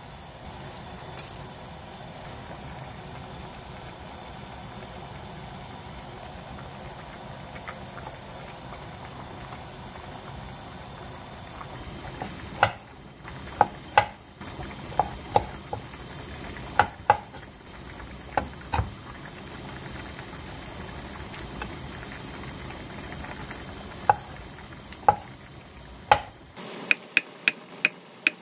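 Water boiling hard around spaghetti in a pan, a steady bubbling hiss. About halfway through, a knife starts chopping cherry tomatoes on a wooden cutting board, sharp irregular knocks on the wood. Near the end these become a quick run of chops as black olives are sliced.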